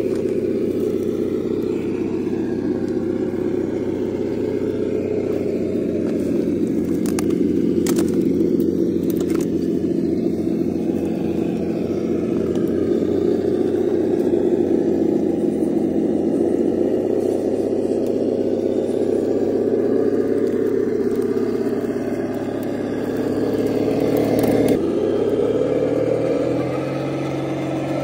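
Simulated engine rumble from an ESS-Dual+ engine sound simulator on a 1/10-scale RC rock crawler, running steadily with small rises in pitch as the truck climbs. A few sharp clicks of tyres or chassis on rock come about a third of the way in, and the engine note shifts suddenly near the end.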